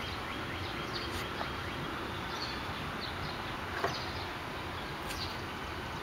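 Steady outdoor background hiss with a few faint bird chirps, and a light click about four seconds in.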